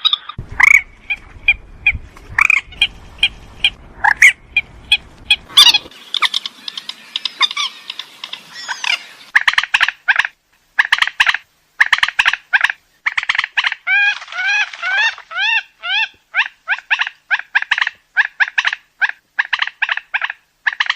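Burung mandar (rail) calling: a long, rapid series of short, loud, repeated call notes, some with a hooked upward inflection partway through. A low rumble sits under the calls for the first few seconds.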